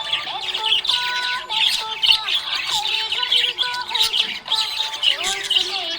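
Budgerigar chirping and warbling: a continuous, fast run of high chirps mixed with short held notes.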